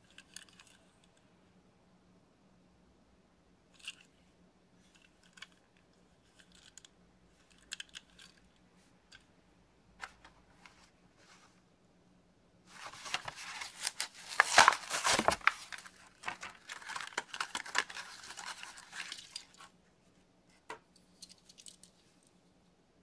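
A Matchbox blister-card package being torn open by hand: a stretch of loud tearing and crinkling of card and plastic, about seven seconds long, starting about halfway in. Before and after it, faint scattered clicks and rustles of the package and the diecast toy car being handled.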